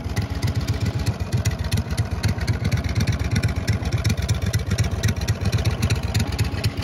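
570cc V-twin engine on a motorized bicycle running steadily, a rapid even stream of firing pulses.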